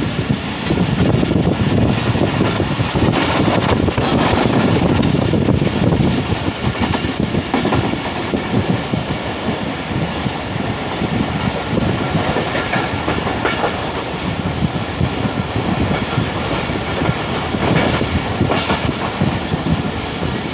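Passenger train running along the track: a steady, loud rumble of the moving carriages, with occasional short knocks of the wheels over rail joints.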